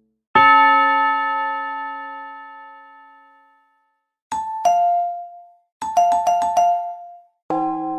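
A string of separate short chime sound effects: a single bell-like tone that rings out and fades over about three seconds, then a two-note ding-dong falling in pitch, then a quick run of alternating ding-dong notes. Near the end another struck chime tone begins to ring.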